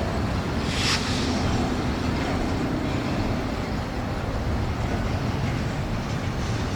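Freight train rolling past: a steady low rumble of wheels on rail, with a brief hiss about a second in.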